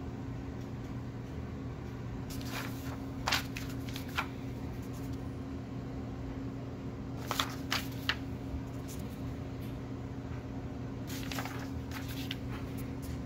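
Paper pages of a booklet being turned by hand, three times, each turn a short crisp rustle of paper. A steady low hum runs underneath.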